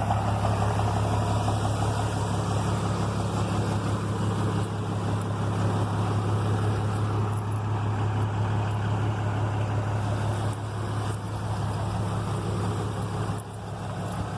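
Big Ford truck engine idling through a straight-through exhaust, a steady low rumble.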